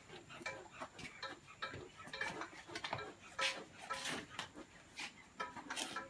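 Beehive smoker worked by hand: irregular puffs of air from its bellows, with light clicks and rattles of the metal can, two stronger puffs a little past the middle.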